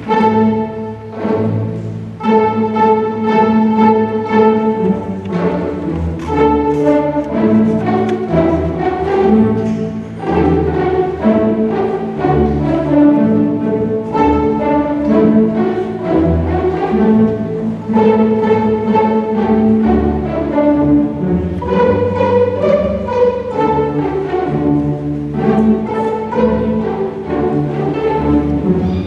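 Beginner middle-school string orchestra of violins, cellos and double basses playing together, mostly in held, bowed notes.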